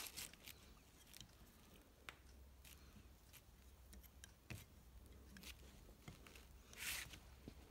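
Near silence, with faint scattered metal ticks of a long Allen wrench turning screws out of a snowmobile transmission gear plate, and a brief rustle near the end.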